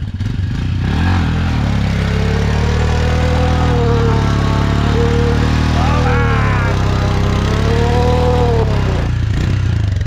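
Motorcycle engine running steadily. A wavering higher-pitched tone sits over it for most of the stretch and sweeps sharply upward once around the middle.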